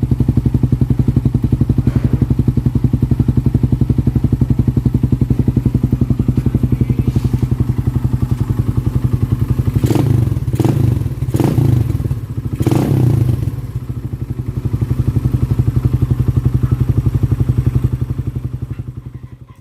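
Suzuki Raider 150's single-cylinder four-stroke engine idling through an Apido aftermarket exhaust packed with steel wool, with a steady rapid exhaust pulse. About ten seconds in it is blipped four times in quick succession, then settles back to idle and fades out near the end.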